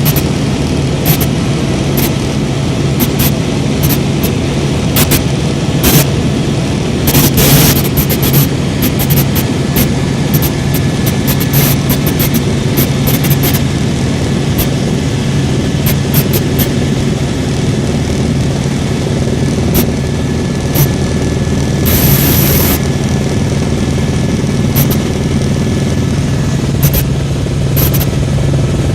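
Helicopter engine and rotor noise, a loud steady drone with a constant low hum, with scattered brief crackles and one longer noisy burst about 22 seconds in.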